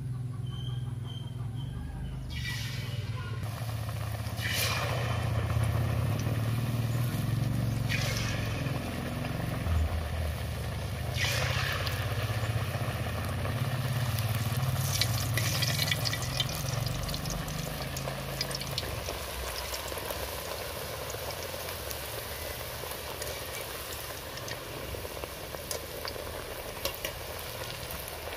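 Semolina pitha deep-frying in hot oil in a wok. The sizzle starts about two seconds in and flares up sharply four times as more pieces of dough go into the oil, then runs on as a steady crackling sizzle. A low drone underneath stops about two-thirds of the way through.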